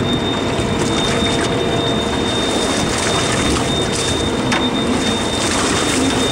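Steady rushing noise of wind and sea around a boat, with a constant faint hum running through it.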